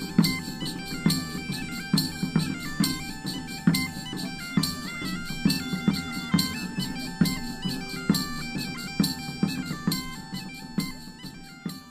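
Background music: a bagpipe tune over a steady drone, with a regular drum beat, fading out near the end.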